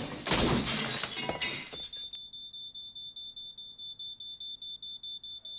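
Glass shattering in a crash that lasts about two seconds. Then a thin, high electronic tone starts and keeps up, pulsing quickly and evenly like an alarm beep.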